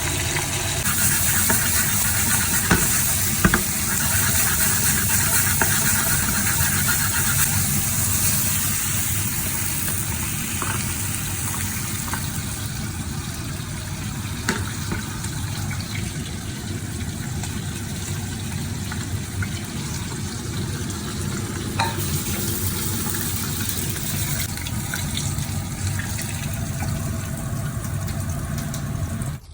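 Hot oil sizzling steadily in a frying pan, with a few light clicks of a utensil against the pan.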